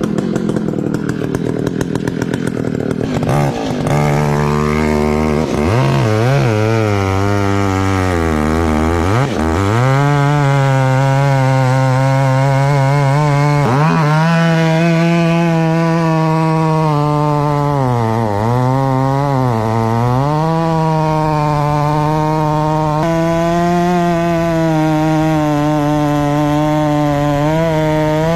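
Very long-bar chainsaw engine revving up a few seconds in, then running at high revs through a cut. Its pitch sags and recovers several times as the chain bites into the wood.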